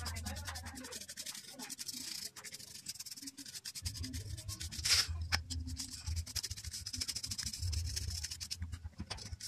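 Paintbrush bristles scrubbing dust off a plastic computer power-supply fan frame and blades, a rapid run of dry scratchy strokes. A low rumble joins about four seconds in.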